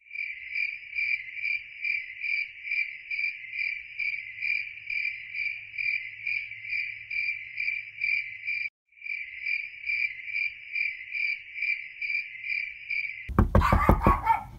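Crickets chirping in a steady, even rhythm, about three chirps a second, with one brief break about two-thirds of the way through. Near the end a louder sound of rapid strokes cuts in.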